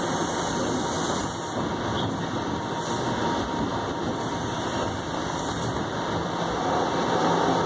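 Interior running noise of a TTC Flexity Outlook low-floor streetcar on the move: a steady rumble with a low hum and a faint steady whine, heard from inside the passenger cabin.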